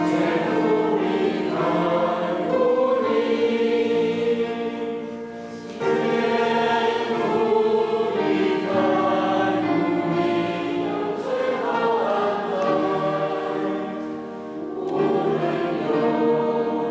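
Choir singing a hymn in long held phrases, starting abruptly, with two short lulls between phrases.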